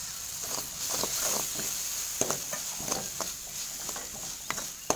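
Onion and red chilli paste sizzling in oil in a frying pan, with soy sauce just poured in, while a perforated metal spatula stirs it, scraping and tapping against the pan in short, irregular strokes.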